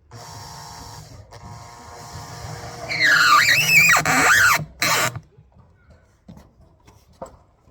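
A power tool running with a steady whine, then loud for about a second and a half with its pitch swooping down and back up, as under load, before cutting off suddenly; a short loud burst follows, then only faint knocks.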